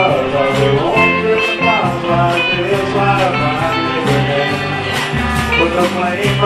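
Live band playing a country song: electric guitar over bass and drums, with a steady beat of about two drum hits a second.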